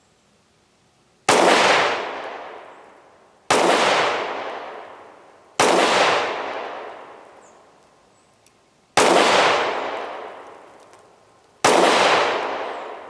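Kel-Tec PR-5.7 pistol firing 5.7×28mm rounds: five single shots spaced two to three seconds apart in slow, deliberate fire. Each shot is followed by a long fading echo.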